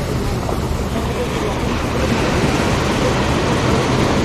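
Ocean surf breaking and washing up a sandy beach, a steady rushing noise with a heavy low rumble underneath.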